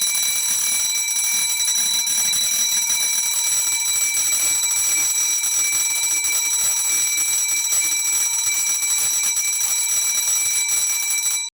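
School bell ringing without a break for about eleven seconds, then cutting off sharply.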